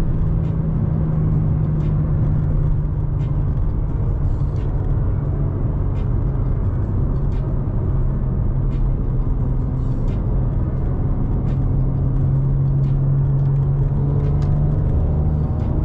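Tuned BMW G80 M3's twin-turbo straight-six droning steadily at cruise, with tyre and road noise, heard from inside the cabin. The engine's pitch sags slightly through the middle and rises again near the end.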